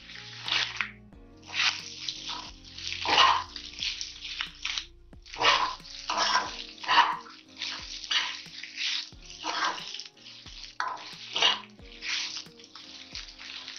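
Spatula stirring and scraping goat intestine fry around a kadai as it fries in its masala, in repeated scraping strokes one or two a second. Faint background music runs underneath.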